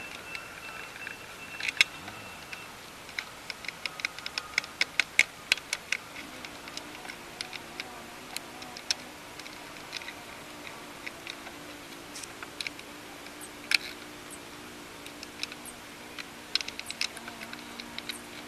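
A socket ratchet clicking in short, irregular runs while it works bolts in the engine bay, with scattered sharp metal tool clicks. A faint steady hum sits underneath from about six seconds in.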